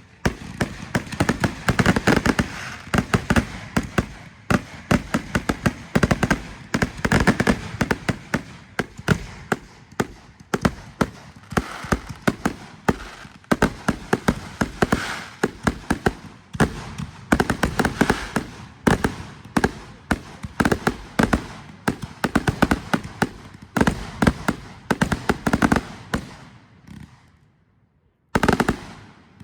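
A rapid barrage of fireworks: bangs and crackles, several a second. It dies away about three seconds from the end, with one last short burst just before the end.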